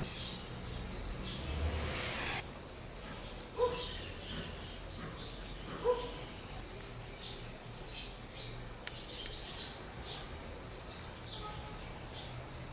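Light scraping and tapping of a stick mixing glue in a small metal tray, with birds chirping in the background. Two short pitched blips stand out near the middle.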